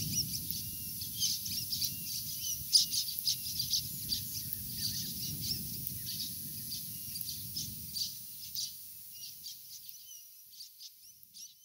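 Outdoor birdsong: many short chirps and calls from several birds over a low steady rumble, all fading out near the end.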